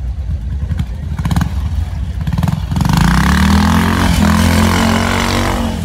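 Old British trials motorcycle engine running, with a low rumble and rapid firing beats. About three seconds in the revs rise and hold in a loud steady drone, then drop away near the end.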